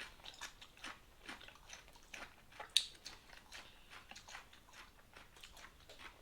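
A person chewing food close to the microphone: a steady run of soft crunching bites, about two a second, with one sharper click about three seconds in.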